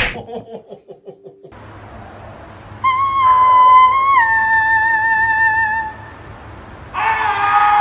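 A cat yowling: a long, wavering, high-pitched yowl that steps down in pitch partway through, then a second yowl starting about a second after it ends. A sharp click and quick rattling ticks come just before.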